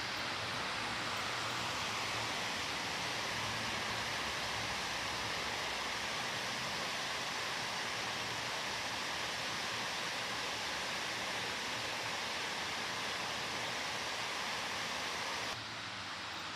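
Steady rush of flowing water, even and unbroken; it cuts abruptly to a quieter outdoor ambience about a second before the end.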